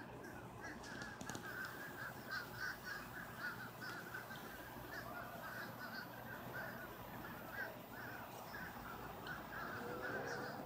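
Birds calling: a steady run of short repeated notes, about three a second, with fainter higher-pitched notes above them.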